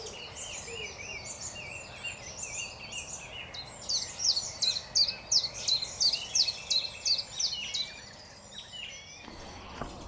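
Woodland songbirds singing: a busy repeated warbling phrase, then from about three and a half seconds a loud series of quick downward-sweeping notes, about two a second, that stops near the end.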